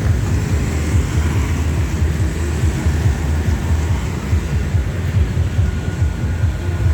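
Loud, steady low engine rumble of heavy vehicles at the level crossing.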